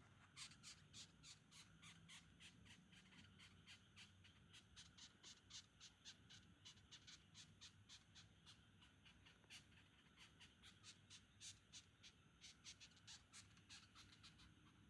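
Longhorn beetle stridulating: faint, rasping squeaks in a rapid, uneven series of several a second, made by rubbing its pronotum against the ridged file on its mesonotum. The squeaks stop at the end.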